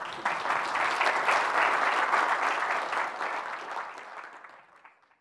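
Audience applauding, swelling quickly at the start and dying away near the end.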